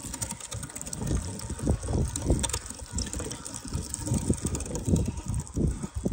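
Hand-cranked metal meat grinder mincing raw red meat, the crank turned by hand with irregular low knocks a couple of times a second.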